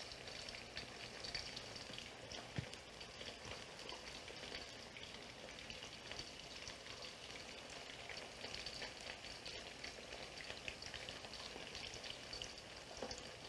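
Zucchini slices shallow-frying in oil in a skillet: a faint, steady sizzle with scattered small crackles.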